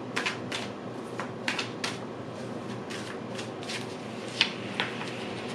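Tarot cards being shuffled by hand, about a dozen short, irregular snaps and slides of the cards, over a faint steady hum.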